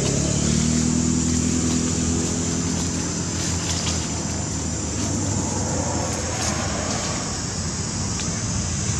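Motor vehicle engine passing, a low hum that rises slightly at the start, holds for about four seconds and then fades, over a steady background hiss.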